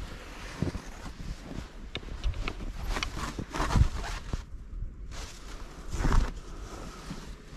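Snow brush sweeping snow off a car's rear hatch and body in irregular strokes, with a short lull about halfway through.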